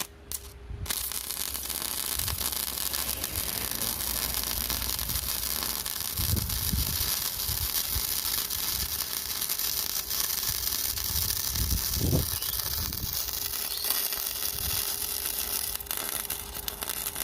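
MIG welding arc burning in one long continuous run, a steady crackling hiss that starts about a second in and cuts off at the very end.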